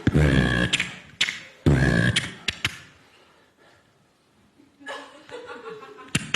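A performer making vocal sound effects with the mouth: two loud, deep booming bursts about a second and a half apart, with sharp clicks between and after them. A near-silent pause of about two seconds follows, then softer mouth sounds and a quick run of clicks near the end.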